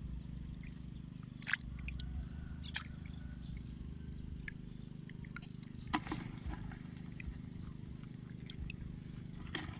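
A high, short call repeating about once a second, typical of a field insect or frog, over a steady low hum, with a few sharp knocks scattered through it.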